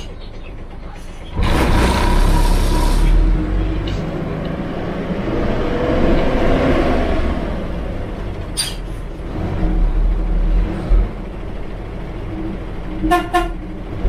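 Yangtze River front-engined city bus heard from the cab: a loud burst of compressed-air hiss from the air system about a second in, then the engine running, its note rising and falling, and two short horn toots near the end.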